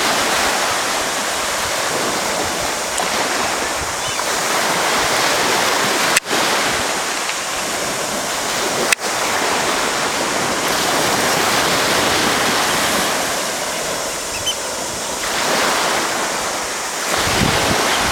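Surf washing onto a beach, a steady rush of noise that swells and eases every few seconds, with two sharp clicks about six and nine seconds in.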